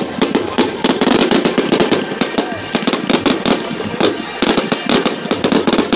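A fireworks display going off in a rapid, continuous volley: many sharp bangs and crackles a second, overlapping one another.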